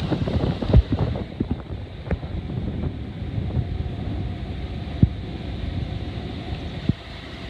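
Wind buffeting the microphone as a dense low rumble, with a few sharp knocks about a second in, around five seconds in and near the end.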